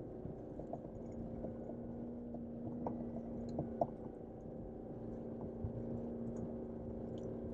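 Jeep Wrangler JL's engine running steadily at low revs, heard from inside the cabin as the vehicle crawls over rough ground, with a few short knocks from the tyres and suspension about three and four seconds in.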